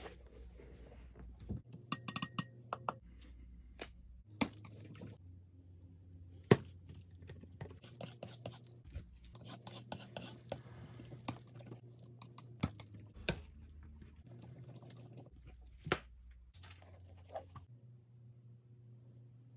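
Scattered sharp taps and clicks of a small brush being handled against a jar and the shoe, with soft scraping and scrubbing between them; the background hum changes abruptly several times where the clips are cut together.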